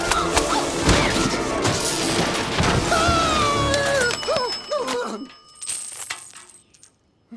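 Cartoon sound effects over music: a payphone crashes to the ground with heavy thuds, then coins spill out and jingle. The jingle thins out to near silence shortly before the end.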